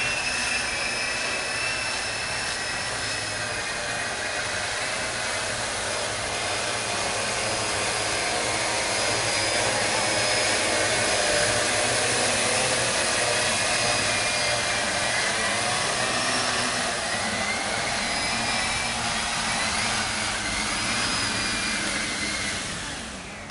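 3W16-10 agricultural spraying drone's propellers and electric motors running in flight: a steady whir with thin high whine tones that drift slightly in pitch, fading down near the end.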